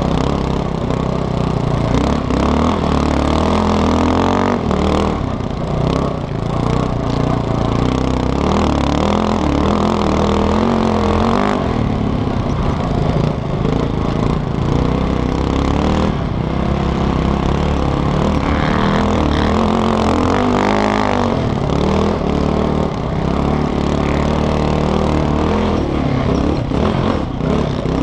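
Sport quad engine revving up and down as the rider accelerates and shifts along a sand motocross track, heard close up from a helmet-mounted camera.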